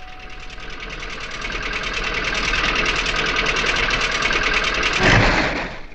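Cartoon sound effect of a small old car's engine putt-putting with a fast, even ticking as the car drives in, growing steadily louder. It gives a louder burst about five seconds in and then cuts off suddenly.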